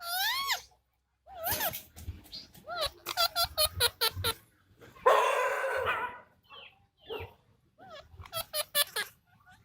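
Indian ringneck parakeets making a run of short squawking calls that rise and fall in pitch, with a harsher, longer screech about five seconds in.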